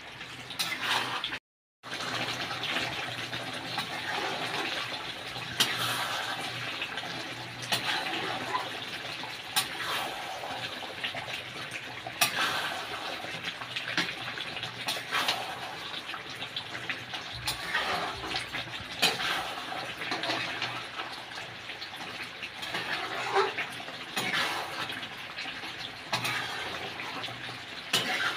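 Thick chicken curry gravy bubbling and sizzling in a kadai as it cooks down to thicken, with the spatula scraping and knocking against the pan now and then. The sound cuts out completely for a moment about a second and a half in.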